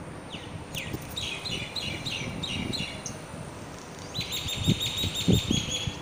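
A bird calling: a few quick downward-sweeping notes, then rapid runs of chirps, ending in a steady high series of chirps. A few low thumps come near the end.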